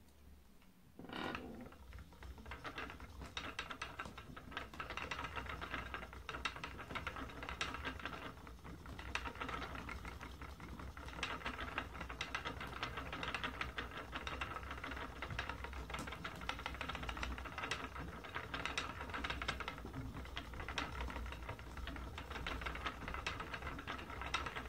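Wooden spinning wheel starting up about a second in, then running steadily as yarn is spun, the turning wheel and whirling flyer and bobbin making a continuous light clicking clatter.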